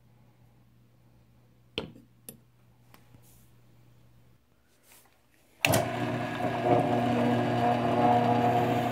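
A few light clicks of wood blocks being handled, then about two-thirds of the way in a drill press starts up suddenly and runs steadily with a constant hum as its bit bores into a hardwood knife-handle block.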